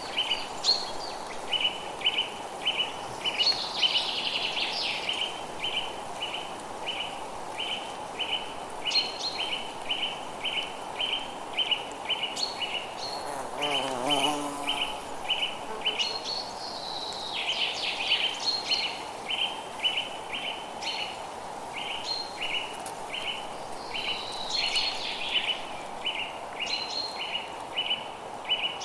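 Forest ambience: a steady run of short chirps repeating two or three times a second, with scattered higher bird calls and twitters over a soft background hiss. A wavering call sounds once about halfway through.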